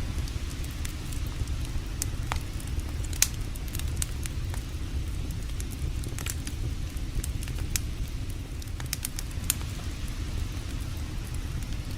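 Wood campfire crackling, with scattered sharp pops, the loudest about three seconds in, over a steady low rumble.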